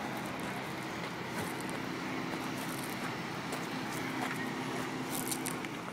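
A steady engine drone over outdoor background noise, with a few light clicks near the end.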